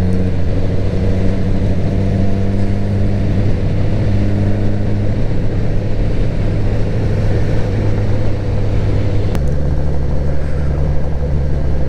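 Suzuki GSX-R1000 K7's inline-four engine running steadily under way, with wind rush. About nine seconds in there is a click and the engine note steps down to a lower pitch: an upshift.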